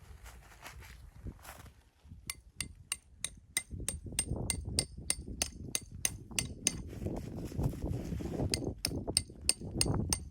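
A quick run of light, ringing metallic strikes, about three or four a second, that stops briefly a little after the middle and then starts again, over a low rumbling noise.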